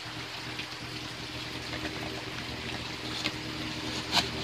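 Water trickling in a backyard koi pond: a steady running-water hiss over a faint steady hum, with a few small clicks and one sharper click near the end.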